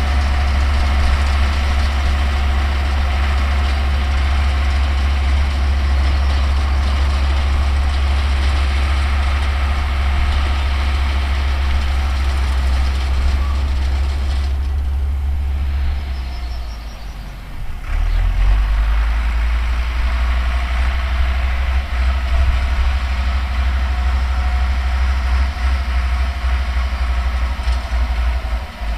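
Older Deutz tractor's diesel engine running steadily while it pulls and drives a New Holland round baler. About halfway through, the higher machinery noise drops away and the engine note dips for a couple of seconds, then the engine picks up and runs steadily again.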